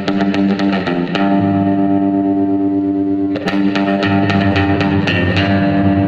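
Music: a distorted electric guitar riff over bass. It has quick runs of picked notes and held notes, with a fresh hard attack about three and a half seconds in.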